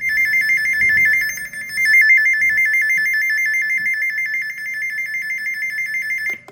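First Alert SFA1150 weather radio sounding its alert test: a loud, high alarm tone warbling rapidly between two pitches. It starts abruptly and cuts off sharply near the end.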